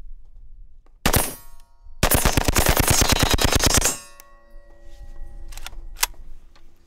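Saiga 5.45 rifle in a Slide Fire stock bump-firing: a short burst about a second in, then a rapid burst of about two seconds at roughly ten shots a second. A metallic ringing lingers after the burst, with a single sharp crack near the end.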